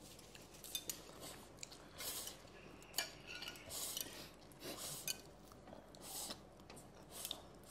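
Faint eating noises at a table: scattered clicks and clinks of utensils against bowls and dishes, with short soft bursts of noise between them.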